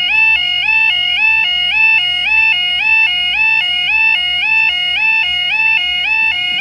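UK level crossing warning alarm sounding continuously: a loud two-tone yodel-type warble, stepping between a lower and a higher pitch about twice a second, as the barriers come down ahead of an approaching train.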